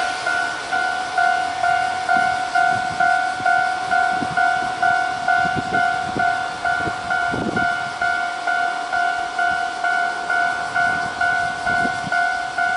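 Japanese level-crossing alarm from Toho Denki Kogyo warning units, an electronic bell tone repeating evenly about twice a second. A few faint low knocks come in the middle.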